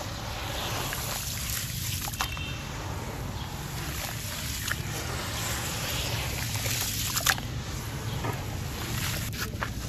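Hands squeezing and kneading wet, gritty sand-cement mush in a plastic tub of muddy water: continuous sloshing and squelching, with a few sharp clicks, the loudest a little after seven seconds in.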